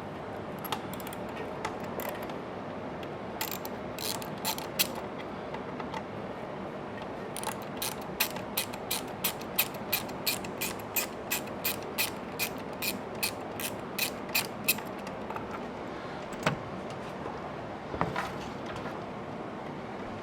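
Hand ratchet with a 6 mm hex bit clicking as it backs out the Allen bolts holding a motorcycle battery cover: a few scattered clicks, then a steady run of about three clicks a second for several seconds.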